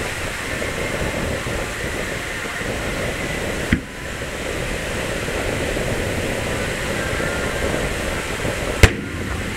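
Two aerial firework shells bursting: a sharp bang about four seconds in and a much louder one near the end, over a steady background noise.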